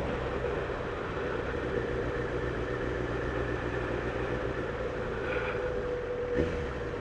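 Motorcycle engine running steadily at low speed, with road and wind noise; a short knock about six and a half seconds in.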